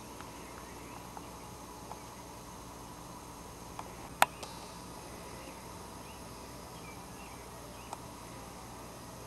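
Faint outdoor background with a steady high hiss, a few soft distant bird chirps, and several light clicks, the loudest a single sharp click about four seconds in.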